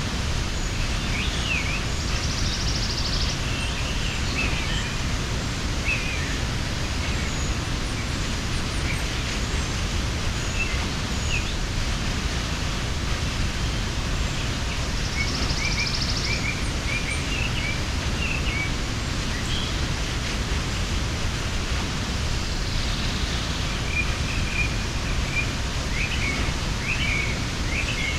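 Mountain waterfall pouring steadily, a constant rushing noise. Small birds chirp now and then over it, with a short buzzy trill a few times.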